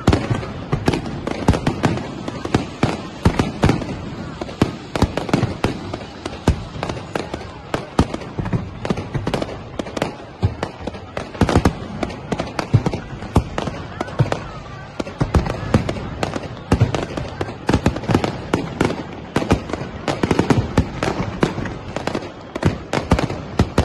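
Aerial fireworks bursting overhead in quick succession: a dense, unbroken run of sharp bangs and pops.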